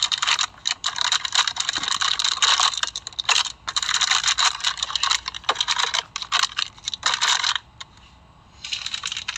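Packaging being handled during unboxing: dense crinkling and rustling with many small clicks and rattles, pausing briefly near the end.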